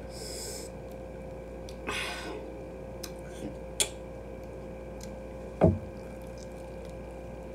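Wet eating sounds from a hot-sauce-coated fried chicken wing: sticky squishing as fingers handle it, a few short clicks, and a louder short thump of a bite about five and a half seconds in.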